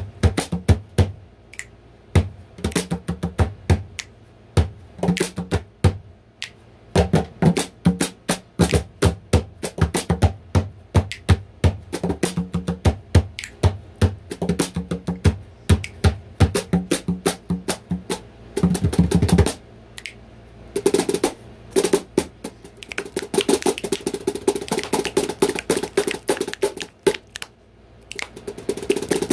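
Jaw harp played in a fast, steady rhythm: quick plucks over a low drone. Around twenty seconds in, the drone drops away and the playing turns denser and hissier.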